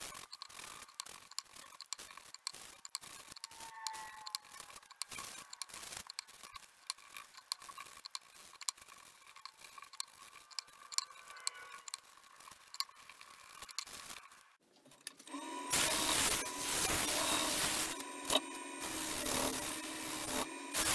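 A rag wiping cellulose sanding sealer onto a pine and plywood bowl held still on the lathe, in many short strokes. About three quarters of the way through, the wood lathe starts and runs with a steady hum, a hand rubbing against the spinning bowl.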